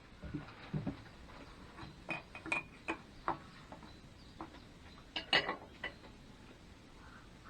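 Small metallic clinks and knocks from engine parts and tools being handled, in scattered groups: several about two to three seconds in and a louder cluster a little after five seconds.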